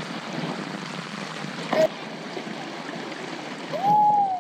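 Shallow creek rapids flowing steadily over rocks. A sharp click comes a little under two seconds in, and near the end a loud sliding call rises, dips and rises again.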